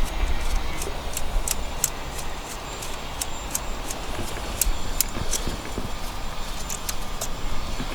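Scattered light, sharp clicks of hand tools and metal parts being handled as ignition coils are unbolted from the engine, over a low rumbling background.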